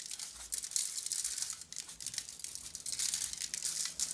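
Salt shaken from a shaker over raw steaks on a foil-lined tray: grains rattling in the container and hitting the meat and foil in a dense, uneven run of quick crackly ticks.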